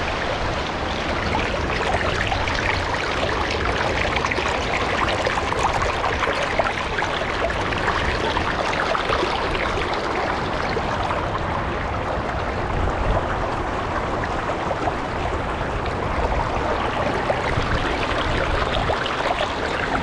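Shallow stream water flowing and splashing over rocks and pebbles, a steady rushing babble.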